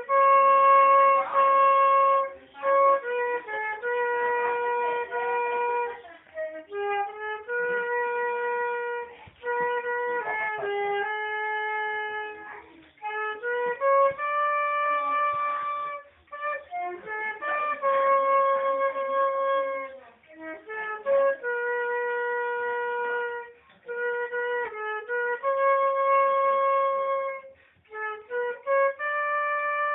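Solo transverse flute playing a slow melody: notes held for one to two seconds, joined by quick runs, in phrases of a few seconds with short breaks between them.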